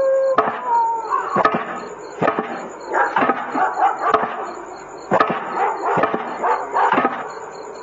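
A dog barking and yelping in short repeated calls at uneven intervals.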